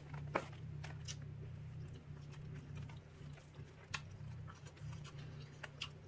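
A person chewing a bite of a Papa John's Papadia flatbread sandwich with the mouth closed: scattered wet mouth clicks and smacks, the sharpest about half a second in, over a steady low hum.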